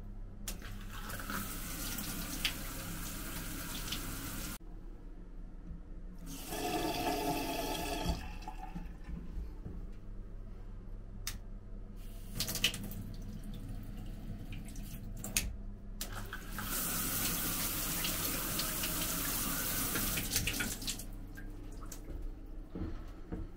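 Water running from a bathtub mixer tap as its lever handle is turned on and off: two spells of steady running water about four seconds each, a shorter spell in between, and a few sharp clicks of the handle. A steady low hum sits underneath.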